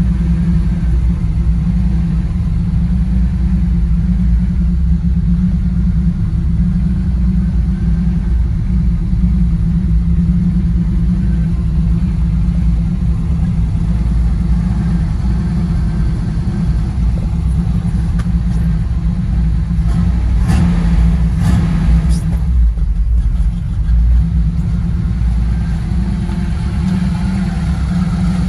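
1970 Chevrolet C10's 350 cubic-inch V8 idling steadily, with a few knocks about twenty seconds in.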